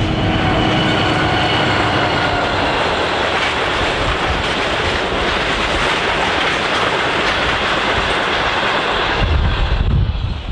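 Passenger carriages of a train hauled by an NR class diesel-electric locomotive rolling past close by: a steady rumble and rattle of steel wheels on the rails. The sound drops away near the end as the last carriage clears.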